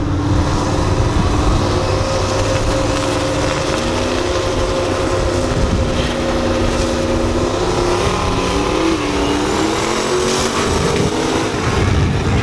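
Two turbocharged LSX V8 engines in big-body Chevrolets running and revving at the drag strip's starting line, their pitch wavering up and down as they stage. Near the end the cars launch.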